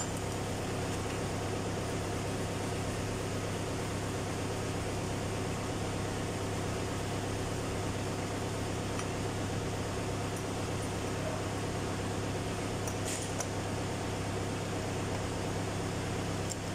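Steady low mechanical hum, with a few faint metallic clinks from hand work on the engine's timing gears about three-quarters of the way through.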